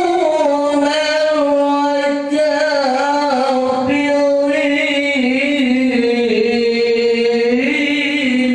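A man's voice singing a devotional chant into a microphone, holding long notes that slowly bend in pitch.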